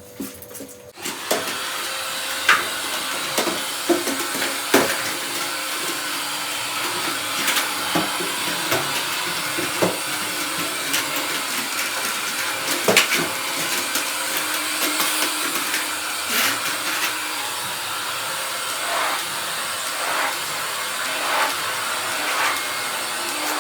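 Vacuum cleaner switched on about a second in and running steadily, with occasional clicks and knocks over its drone.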